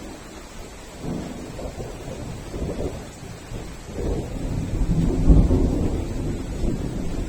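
Thunder rolling through heavy rain. It is a long, low rumble that swells about a second in and is loudest around five seconds in, over steady rain.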